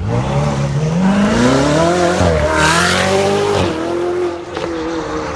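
Ferrari 488 GTB's twin-turbo V8 through an Fi valved exhaust, accelerating hard: the engine note climbs for about two seconds, dips briefly at an upshift, climbs again, then settles to a steadier tone near the four-second mark.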